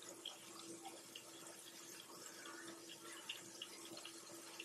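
Breaded chopped steak patties shallow-frying in oil: a faint, steady sizzle with small crackles and pops.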